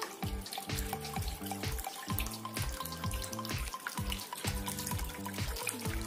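Background music with a steady beat, over water trickling and splashing from a small tabletop fountain.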